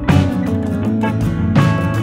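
Background music led by a guitar, with notes changing every half-second or so.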